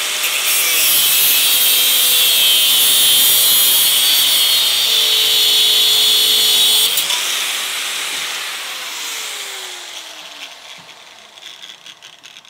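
Corded angle grinder's cutting disc grinding through the Barronium-armoured shackle of a Litelok X1 Moto D-lock, loud and steady. About seven seconds in the disc comes off the metal and the motor spins down with a falling whine that fades over a few seconds.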